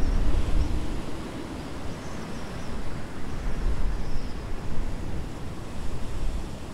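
Breeze gusting over the microphone, a rumbling buffet that is heaviest in the first second and swells again later, over a steady rush of wind.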